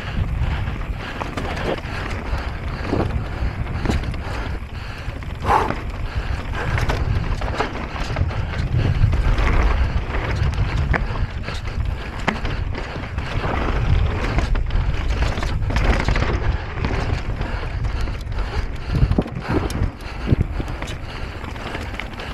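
Wind buffeting the microphone of a camera on an e-bike descending fast, a heavy low noise throughout, with frequent short clicks and knocks from the bike rattling over rough trail.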